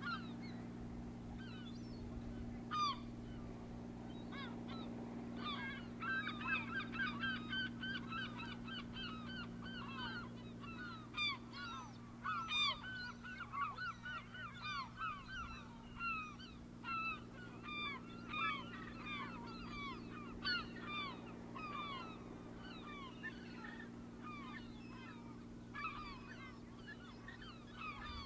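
A flock of birds calling over one another: many short calls, each falling in pitch, thickest from about six to twenty-one seconds in, over a steady low hum.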